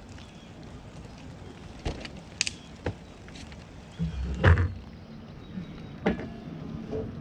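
Scattered knocks from gazebo frame pieces being handled and fitted during assembly, with a louder clatter of knocks about four to four and a half seconds in.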